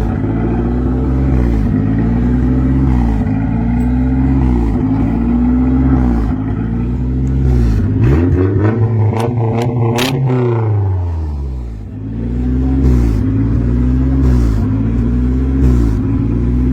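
Nissan 240SX engine running with its speed rising and falling over and over, about every second and a half, consistent with the surging the owner sees on the tachometer. About two-thirds of the way through it drops in pitch and dips, with a few clicks, then the rise-and-fall resumes.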